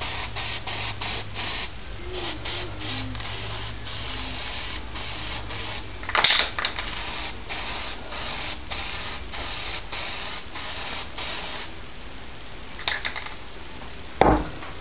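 Aerosol spray-paint can sprayed over plastic trim in quick short hissing spurts, about two to three a second, stopping about twelve seconds in. A single thump near the end.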